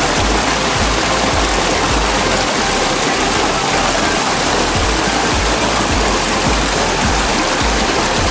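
Background electronic music with a steady bass beat of about two pulses a second, over a steady rushing hiss.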